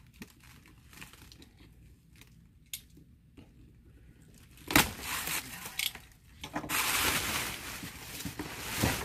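A large cardboard box being worked loose and dragged, its cardboard scraping and a plastic tarp crinkling, loudest in the last two seconds. A single sharp snap comes about halfway through, after a few quiet seconds of small clicks.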